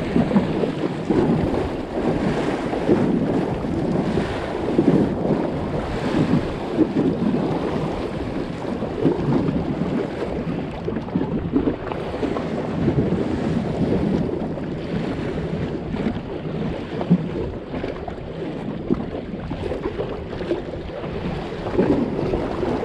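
Wind buffeting the microphone in uneven gusts, over choppy lake waves lapping against the pier.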